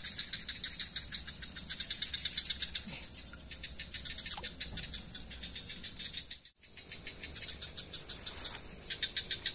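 Night insect chorus: a steady high-pitched cricket trill with a rhythmic chirping over it, about five pulses a second, that fades in and out. The sound cuts out for a moment about six and a half seconds in.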